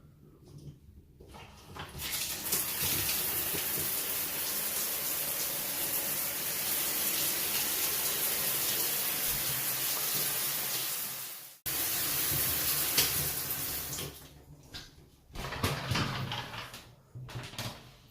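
Water running steadily in a bathroom, from a shower or washbasin tap. It cuts off abruptly about eleven and a half seconds in and resumes at once, then gives way to scattered knocks and handling noises near the end.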